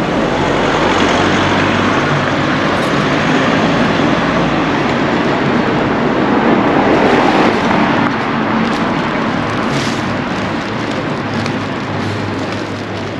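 Loud, steady vehicle noise with a low engine hum, swelling to a peak in the middle and easing off near the end, as of traffic passing close by.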